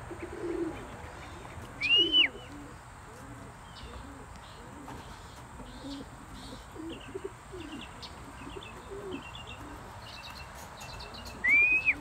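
Racing pigeons cooing, short low warbling calls one after another, with small birds chirping faintly. Twice, about two seconds in and near the end, a loud short whistle that rises and falls.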